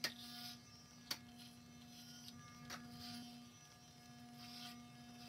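Corded electric hair clippers with a 1-inch guard buzzing steadily as they cut hair on top of the head, with recurring soft swishes through the hair and three brief sharp clicks.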